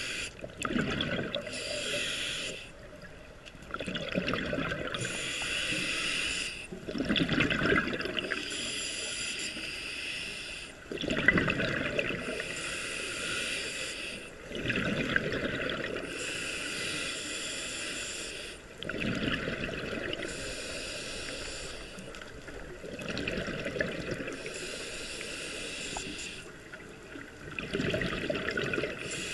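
Scuba diver breathing through a regulator, heard from underwater: a hissing inhale alternating with a bubbling exhale. About one breath every four seconds.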